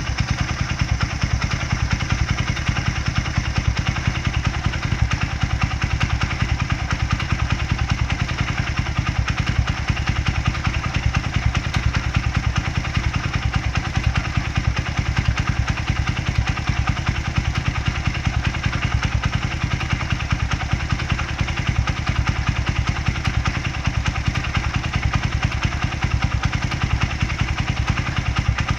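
Honda Ape motorcycle's single-cylinder four-stroke engine idling steadily, with a fine, rapid clatter over the low engine pulses: an abnormal noise coming from the engine.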